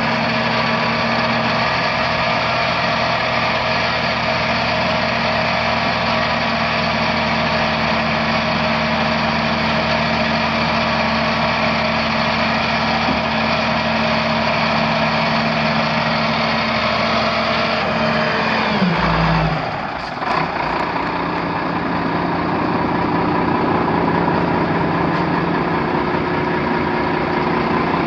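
A 1989 Ford L8000 dump truck's 7.8-litre six-cylinder diesel engine running steadily at idle. About two-thirds of the way through, its note drops and wavers for a second or two, then it settles into a steady idle again.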